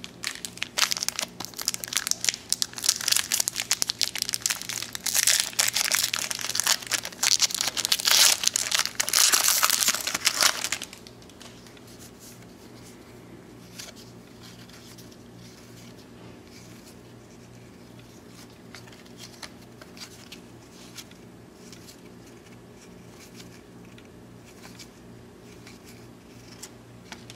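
A baseball card pack's wrapper being torn and crumpled: a dense, loud crinkling that lasts about eleven seconds and then stops abruptly. Afterwards, only faint soft clicks of cards being leafed through a stack.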